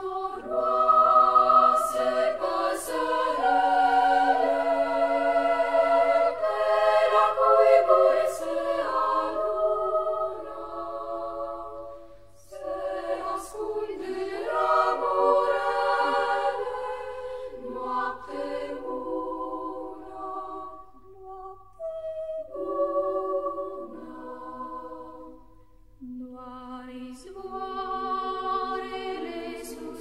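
Choir singing a slow piece, several voices holding chords that change from phrase to phrase, softer in the middle and swelling again near the end.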